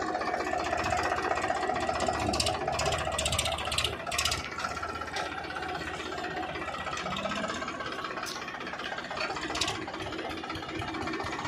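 Powertrac Euro Next tractor's diesel engine running steadily with a rapid, even knocking beat, with a few short high-pitched rattles along the way.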